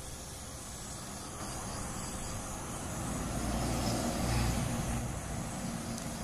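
A road vehicle driving past, its low rumble swelling to a peak about four seconds in and then fading. It sits over a steady hiss, recorded through the Nikon Coolpix P510's built-in microphone.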